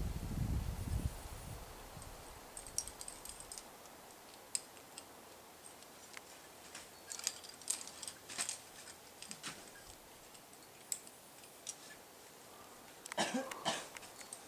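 Faint, scattered metallic clinks of climbing gear (carabiners and quickdraws on a harness) as a climber moves up the rock, with a denser cluster of clinks and rustling near the end. A low rumble of wind on the microphone fades out in the first second or so.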